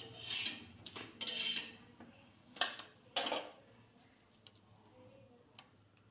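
A cooked paratha scraping against metal cookware, an iron griddle and a steel plate, in four short rasping bursts over the first three and a half seconds. After that only faint handling ticks follow.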